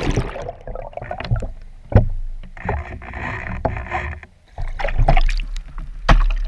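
Water sloshing and splashing over a swamped model speedboat's hull, heard from its deck camera partly under water, with irregular knocks and thumps and no motor running. A sharp knock comes about two seconds in and another near the end, as a hand takes hold of the boat.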